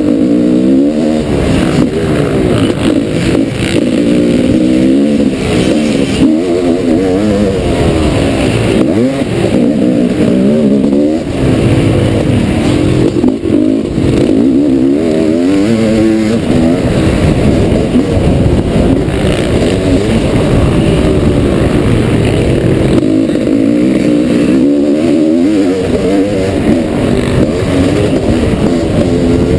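1989 Honda CR500's 491 cc two-stroke single-cylinder engine, ridden hard round a motocross track. The engine pitch climbs and falls again and again with throttle and gear changes, with a run of quick rising shifts about halfway through.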